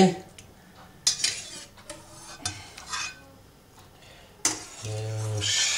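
Metal kitchen utensil clinking and knocking against a cooking pot and a glass bowl while boiled potato dumplings are lifted out of the water: a handful of separate sharp knocks spaced about half a second to a second apart.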